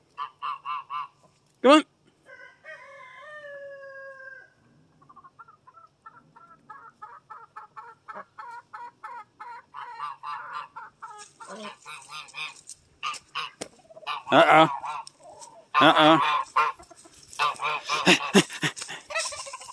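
Backyard poultry calling: short quacks at first, a rooster crowing about three seconds in, then a long run of rapid clucking. Loud goose honks come in the last few seconds and are the loudest sounds.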